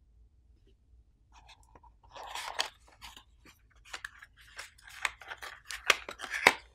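Plastic packaging crinkling and rustling as it is handled and unwrapped by hand, with a few sharp clicks. It starts about a second and a half in.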